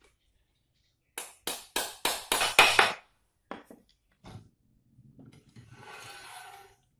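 A quick run of about six sharp knocks, getting louder, then two single knocks and a short rustling scrape near the end.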